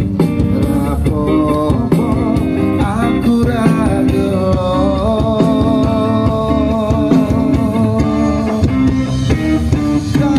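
Music: a song with a singer over guitar accompaniment, playing loud and steady without a break.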